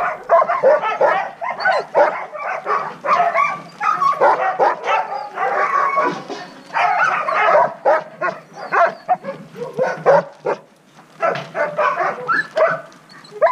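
A yard full of sled dogs barking over one another almost without pause, worked up with excitement before a run, with a brief lull about ten seconds in.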